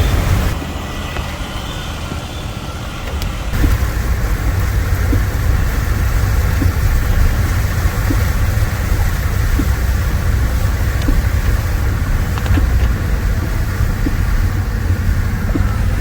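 Street traffic: vehicle engines running with a heavy, steady low rumble, dipping for a few seconds near the start.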